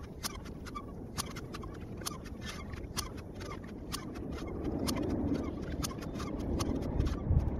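Outdoor ambience: a low rumble that swells a little in the second half, with many sharp, irregular clicks scattered through it.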